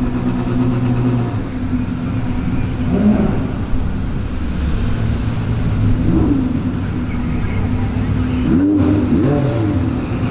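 Several supercar engines running as a line of cars rolls past at low speed, with a few short throttle blips that rise and fall in pitch.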